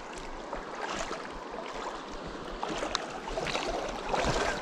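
Shallow river water running and splashing, with a few small splashes in the water.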